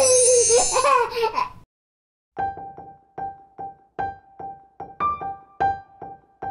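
A brief squeaky vocal sound with a wavering pitch, then a short gap, then background music of short plinking notes repeated mostly on one pitch, about two to three a second.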